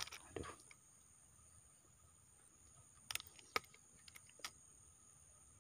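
Faint, steady high-pitched insect buzzing from the riverside vegetation, with a soft thump near the start and a few short sharp clicks about three seconds in.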